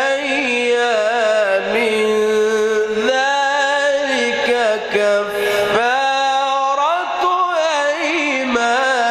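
A man reciting the Quran in the melodic mujawwad style, holding long ornamented notes that bend up and down in pitch. The phrases break briefly about three and six seconds in.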